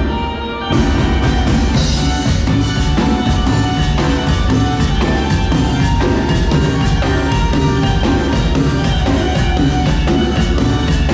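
Live band playing a song, with a drum kit keeping a steady beat that comes in under a second in, heard through the camera's own microphone.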